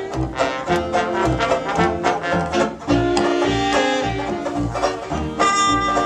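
1930-style dance band playing an instrumental passage: saxophones and brass over a steady plucked-string and string-bass beat. Near the end a long high note comes in as the standing trumpeter starts to play.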